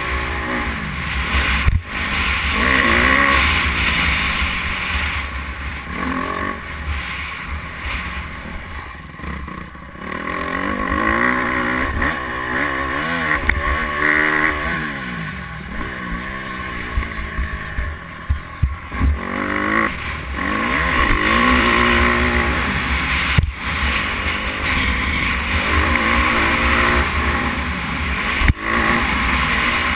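Dirt bike engine under a rider, revving up and down repeatedly as it is ridden on a motocross track, easing off twice in the middle, with a few sharp knocks. Wind rumbles on the helmet-mounted microphone.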